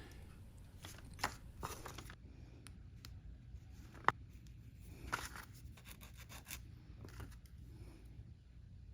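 Faint, intermittent scraping and scratching of a small hand tool cleaning the attachment points off tiny model parts, with a sharp click about four seconds in.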